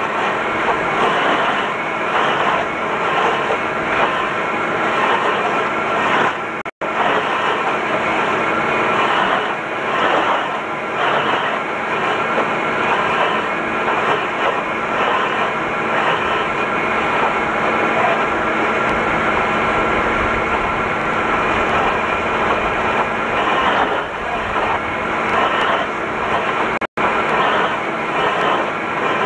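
Fiatagri 180-90 tractor running steadily under load, powering a Rotor stump grinder as its vertical cutter grinds a stump into wood chips. The sound cuts out for an instant twice, about 7 and 27 seconds in.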